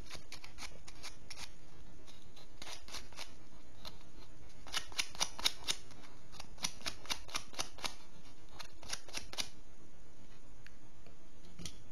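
Sandpaper rubbed in runs of quick, short strokes over the small metal contacts of a battery quartz clock movement, scraping off rust and residue so the current can flow to the coil.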